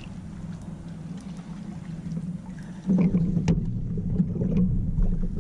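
Wind and water noise on a fishing kayak's camera microphone with a low steady hum. It gets louder about three seconds in, and a few light knocks come with it.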